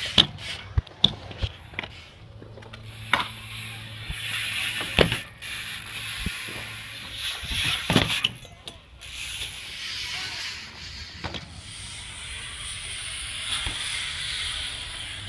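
BMX bike being ridden: tyres rolling with a steady hiss, the rear hub clicking, and a series of sharp knocks from landings and tricks, the loudest about three, five and eight seconds in.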